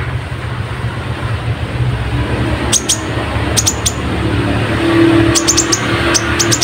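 Little spiderhunter (kolibri ninja) calling in groups of sharp, very short high chips, starting a few seconds in and coming faster toward the end. A steady low rumble runs underneath.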